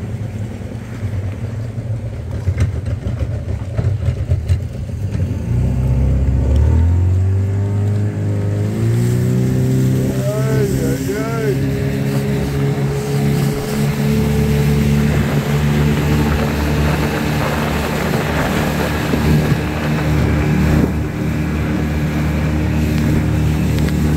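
Water taxi's outboard motor running slowly, then opened up about six seconds in, its pitch rising over a few seconds and settling into steady running at speed. A rushing noise builds underneath as the boat gets going.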